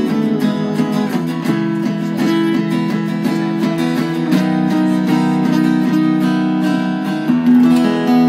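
Small band playing live: an acoustic guitar strummed in a steady rhythm over an electric bass, with a chord held from about seven seconds in.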